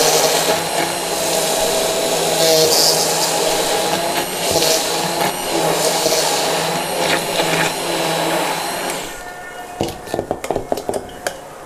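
Handheld electric immersion blender running steadily in a stainless-steel pot, churning yogurt and sugar into sweet lassi. It switches off about nine seconds in, and a few light knocks follow.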